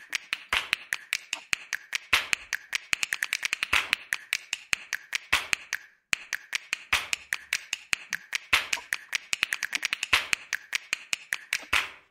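Ratchet wrench clicking in quick runs as bolts are run in on a Jeep XJ transfer case being reassembled, with a brief pause about halfway through.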